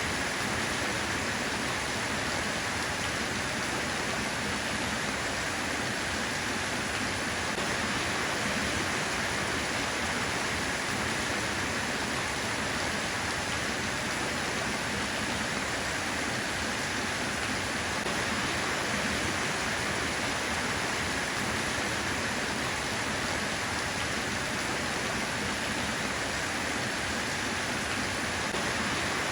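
Steady rain: an even hiss of falling water, with no thunder or single drops standing out.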